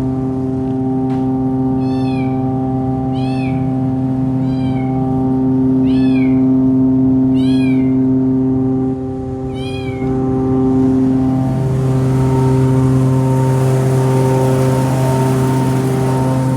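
A steady engine or motor drone, with a short, high, rising-and-falling animal call repeated about every second and a half through the first ten seconds.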